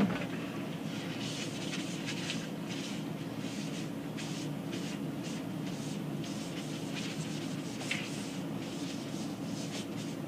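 Paper towel rubbing etch solution over an electrostatic paper offset plate, a run of short, light wiping strokes to saturate the plate before it goes on the press. A knock comes right at the start, and a steady low hum runs underneath.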